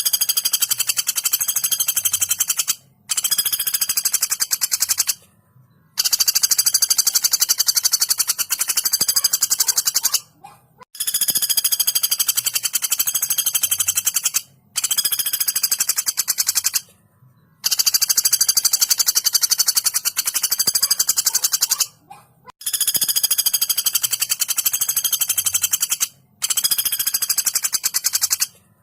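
Female common flameback woodpecker giving fast, high rattling calls in repeated bouts of a few seconds each, about eight of them, with brief pauses between.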